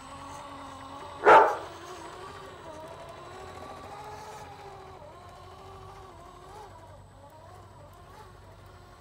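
Electric motor and gears of an RC Land Rover Series III 109 scale crawler whining, the pitch rising and falling with the throttle as it climbs over loose soil. A single loud dog bark cuts in about a second in.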